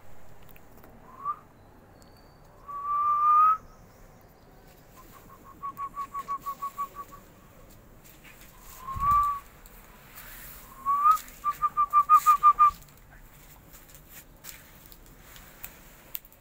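A person whistling to call a puppy: short rising whistles and two quick runs of repeated notes, about eight a second.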